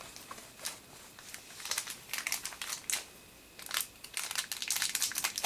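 Plastic packaging crinkling in the hands in short, irregular bursts, with a brief lull about three seconds in, as a Beyblade Burst booster's parts bag is handled and opened.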